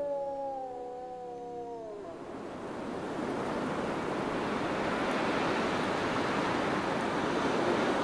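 A wolf howling, one long call falling in pitch that stops about two seconds in. Then a steady rushing noise swells up and holds.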